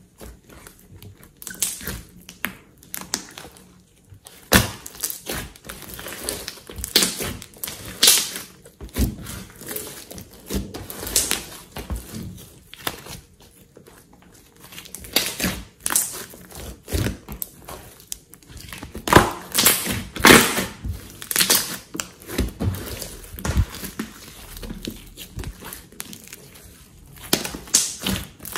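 Hands stretching, folding and squeezing a large mass of glossy slime, making irregular wet crackles and pops, with a run of louder pops about two-thirds of the way through.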